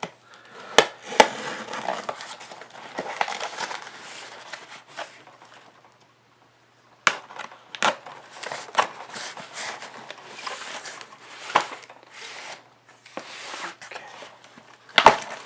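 A craft knife cutting through the packing tape and cardboard of a sealed case: irregular scraping and crackling with several sharp clicks and knocks, and a pause of about a second and a half about halfway through.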